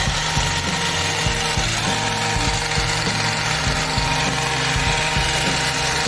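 Background music with held chords that change about two seconds in, over a low pulsing beat.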